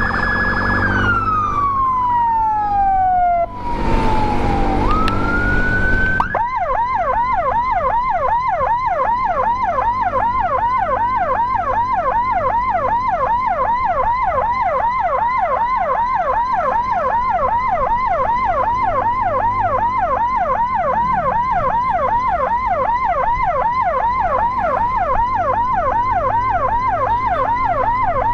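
Electronic emergency sirens. Near the start a wail falls in pitch, a loud rushing noise follows for a few seconds, and then a fast yelp of about three sweeps a second runs with a slower wail rising and falling beneath it.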